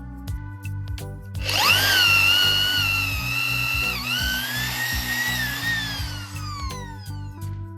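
Handheld electric power tool spinning up to a high whine, briefly dipping in pitch under load about four seconds in, then winding down with a falling pitch near the end, while working on the broken bolt mount of a motorcycle front fork leg. Background music plays throughout.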